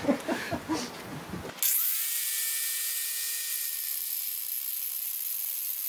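Makita angle grinder switched on, its whine rising briefly as the disc spins up, then running at a steady speed with a hissing high whine.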